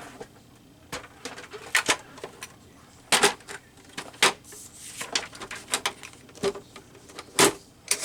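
Paper trimmer and magazine paper being handled: a scattered series of sharp clicks and knocks as a picture is lined up and cut down.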